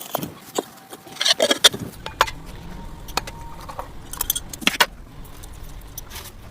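Kitchen utensils clinking and knocking against each other in an irregular series of sharp clicks, in two busier clusters, with a few hits ringing briefly like metal.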